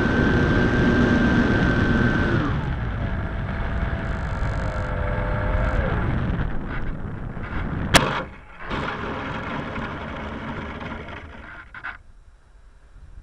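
Onboard sound of a GWS Slow Stick electric RC plane: the motor and propeller whine with air rushing past, drop to a lower pitch about two seconds in as the throttle comes back, and die away around six seconds. A single sharp knock near eight seconds marks the touchdown, and after it there are only a few faint rattles.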